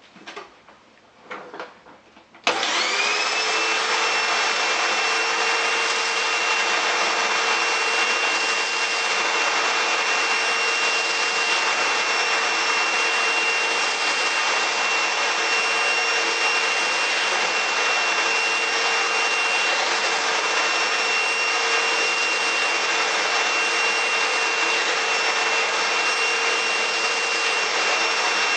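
A few clicks, then a Eureka 3670G canister vacuum cleaner switches on about two and a half seconds in. Its motor spins up to a steady high whine over a loud rush of airflow and runs at constant speed.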